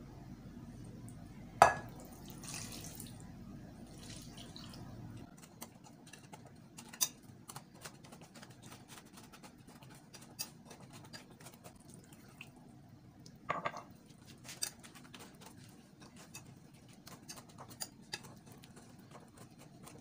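A wire whisk mashing and stirring Oreo biscuits in hot milk in a glass bowl, with scattered light clinks and taps of the whisk against the glass and a sharper clink about two seconds in.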